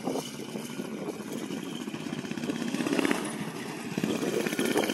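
Predator 212cc single-cylinder four-stroke engine of a quarter midget race kart running, its sound swelling about three seconds in and again near the end. It runs well and is not so loud.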